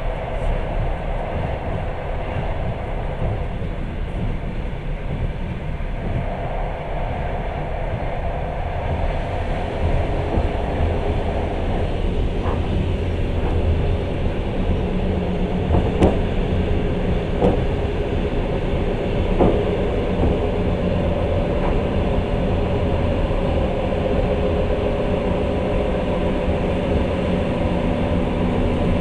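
A long-distance passenger train running, heard from inside the carriage: a steady rumble of wheels on rails, with a few sharp knocks in the middle.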